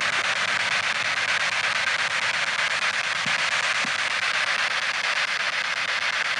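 P-SB7 spirit box, an AM/FM sweep radio, scanning through stations: a steady hiss of radio static from its small speaker.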